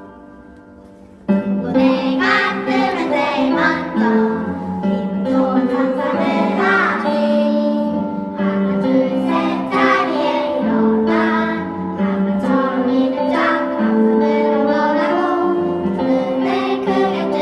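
A held chord dies away, then about a second in a group of children starts singing a song over instrumental accompaniment.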